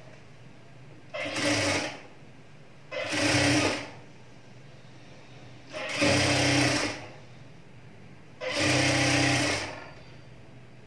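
Industrial sewing machine stitching a folded-over cloth edge, running in four short bursts of about a second each with pauses between them as the fabric is guided.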